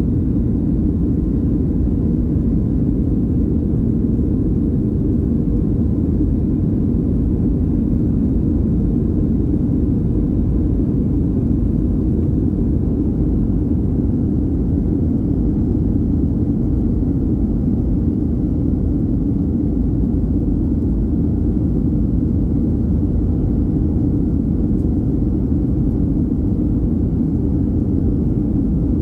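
Steady low rumble of a Boeing 737-800's CFM56-7B jet engines and rushing airflow, heard inside the passenger cabin during the climb after takeoff, with a faint steady high tone over it.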